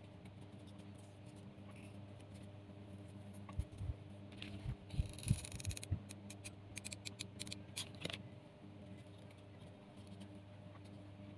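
Craft handling of jute twine and card: a few soft knocks and a short scratchy rustle near the middle, then a quick run of sharp clicks as a hot glue gun is worked. A steady low hum runs underneath.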